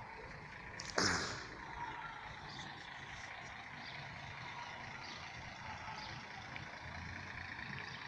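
Steady hum of city street traffic, with a sudden loud thump about a second in.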